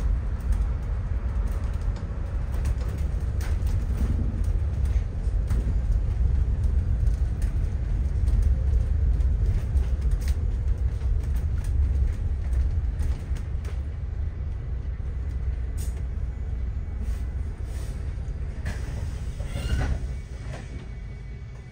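Inside a moving city bus: steady low engine and road rumble, with a short squeal near the end as the rumble dies down and the bus slows for its stop.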